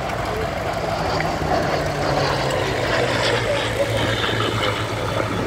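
Radial piston engine of a P-47 Thunderbolt running at low power while it taxis, a steady low drone.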